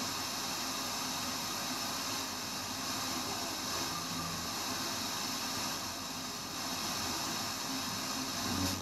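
FM inter-station static from a 1979 Rotel RX 304 stereo receiver as its dial is tuned between stations: a steady hiss with no station coming through.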